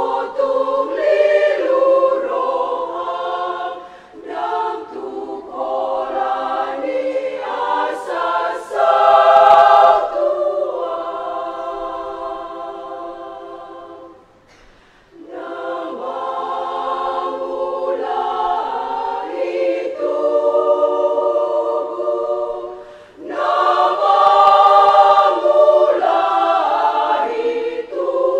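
Women's church choir singing. Partway through, a long held chord fades away; after a brief pause the singing starts again.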